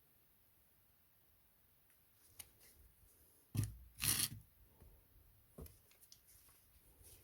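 Packaging being handled close up: a few light clicks and knocks, and about halfway through a short burst of rustling or tearing.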